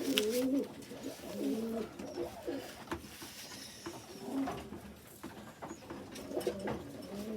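Racing pigeons cooing, one low, wavering coo after another.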